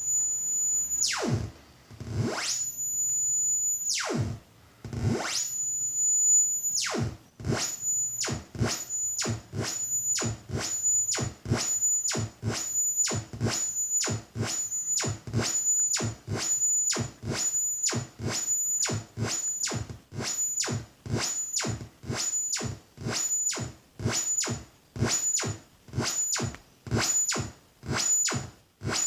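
Future Sound Systems Brunswick analogue synthesizer (DIY build) making a sawtooth-type tone that sweeps up and down in pitch over a very wide range. The first sweeps are slow, about two seconds each. After about seven seconds they speed up to a steady run of roughly one and a half sweeps a second.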